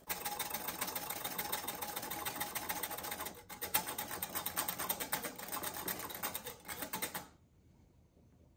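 Wire balloon whisk beating a runny pumpkin pancake mixture in a glass measuring cup: a fast, even clicking and rattling of the wires against the glass, with a brief break partway through. It stops about a second before the end.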